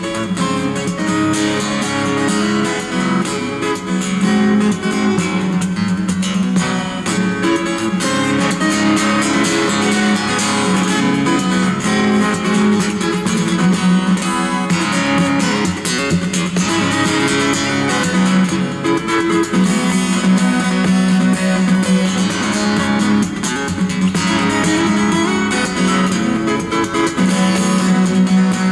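Steel-string acoustic guitar played percussively in fingerstyle, with plucked melody and bass notes mixed with dense, rapid slaps and taps on the strings and body.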